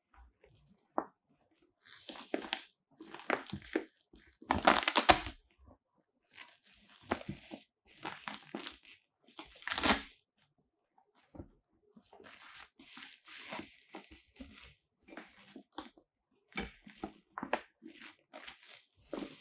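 Shiny black fabric of a Godox octagon softbox rustling and crinkling as it is handled and shifted, in irregular bursts. The loudest bursts come about five seconds in and again about ten seconds in.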